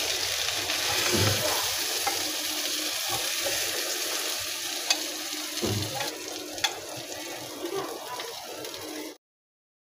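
Chicken tikka pieces sizzling in hot oil in a frying pan, with a couple of sharp clicks of a metal spatula against the pan as pieces are lifted out. The sound cuts off suddenly near the end.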